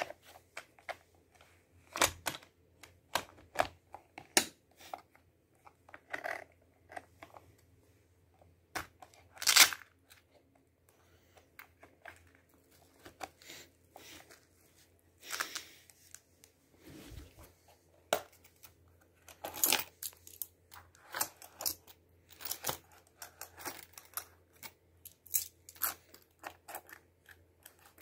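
Handling noises from a duty belt's gear: scattered clicks, taps and short rustles as the polymer holster, pouches and nylon belt are touched and moved, at irregular intervals, the loudest about ten seconds in.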